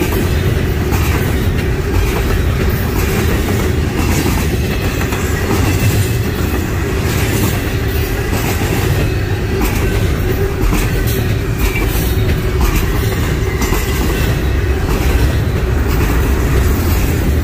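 Norfolk Southern freight train cars rolling past at close range: a loud, steady rumble of steel wheels on rail, with a clickety-clack over the rail joints.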